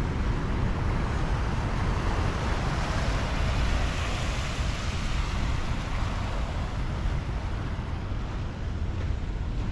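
Surf washing onto a beach, a steady rushing hiss that swells around the middle, with wind rumbling on the microphone.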